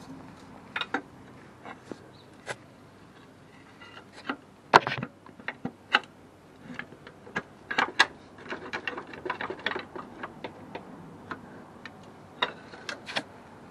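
Irregular metallic clicks and knocks of hand tools and metal parts as the alternator's stubborn second mounting bolt is worked out, with a quick run of clicks partway through and a couple of sharper knocks.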